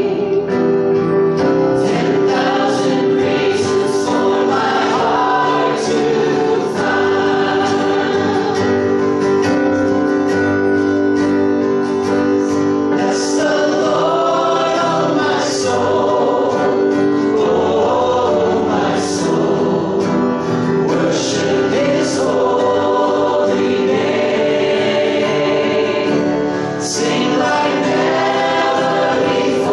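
Male and female voices singing a gospel hymn together through microphones, accompanied by acoustic guitar and keyboard.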